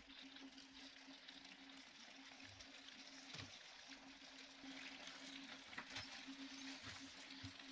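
Faint, steady simmering of penne in cream sauce in a pan over a low hum, with a few soft knocks of a wooden spatula.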